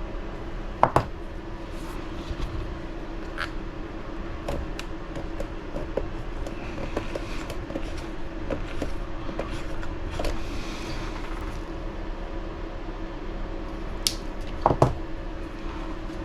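Scattered small clicks and taps of hands handling small hobby parts and tools at a workbench, with a couple of sharper knocks about a second in and near the end, over a steady low hum.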